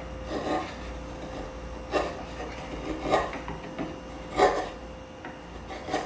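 Wood chisel paring across wood, trimming a convex curve down to the marked line: a series of about six short, separate scraping cuts, the loudest about four and a half seconds in.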